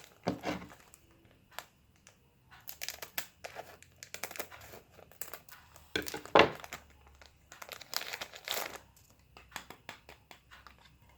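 Plastic packaging crinkling and tearing in several short bouts as a small pink mirror is unwrapped by hand, the loudest rustle about six seconds in.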